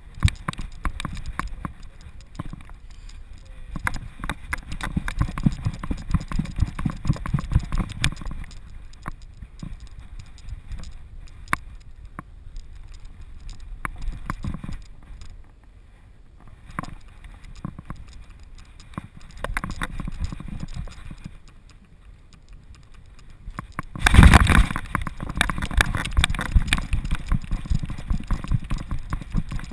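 A running American Staffordshire Terrier's strides, heard through a camera strapped to its back: rapid rhythmic thumps and jolts with rubbing and brushing, in bouts, loudest from about 24 seconds in.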